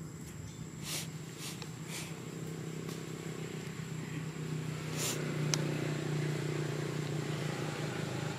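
A steady low engine hum, growing louder from about halfway through, with a few short clicks and rustles.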